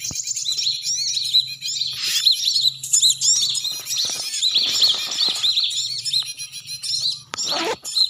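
Small birds chirping and twittering without a break, short arching chirps several times a second, with some rustling in the middle.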